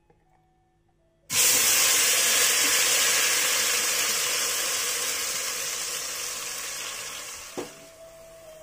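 Blended spice paste of shallots, garlic, tomato and grilled turmeric dropping into hot oil in a stainless steel pot: a loud sizzle starts suddenly about a second in and slowly dies down over the next six seconds. A single knock sounds near the end.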